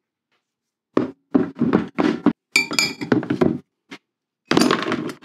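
Steel and cast-iron parts of a dismantled Record No. 52 woodworking vice being set down and dropped into a plastic tub with a little degreaser in the bottom. Starting about a second in, it is a run of knocks and clinks, one with a brief metallic ring, and a denser clatter near the end.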